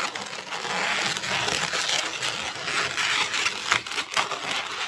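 Inflated latex modelling balloons rubbing and crackling under the hands as they are twisted and pressed together.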